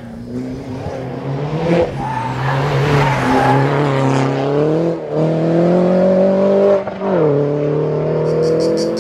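MINI Cooper S John Cooper Works race car's engine pulling hard. Its pitch climbs and then drops sharply at gear changes about two, five and seven seconds in.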